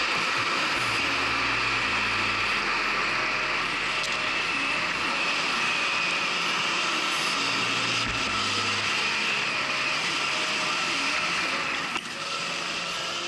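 Electric enduro motorcycle on the move: a steady high whine from the electric drive over rough noise of tyres and wind.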